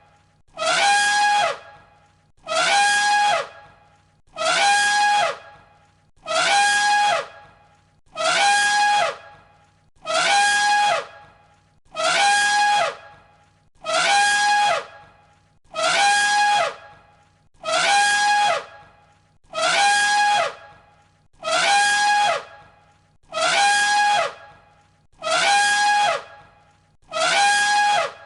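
Elephant trumpeting, the same short call looped over and over: one loud, brassy blast about every two seconds, each lasting about a second and identical to the last.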